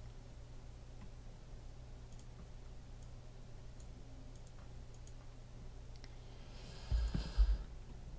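Faint, scattered computer mouse clicks over a low steady hum. About seven seconds in come two dull thumps with a brief hiss.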